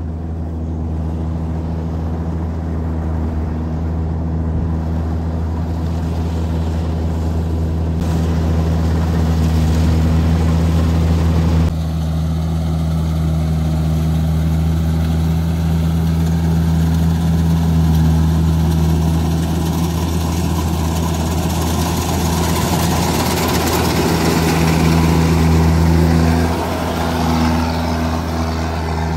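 Kubota DC-93 rice combine harvester working in the paddy: its diesel engine runs at a steady drone under the rushing hiss of the cutting and threshing.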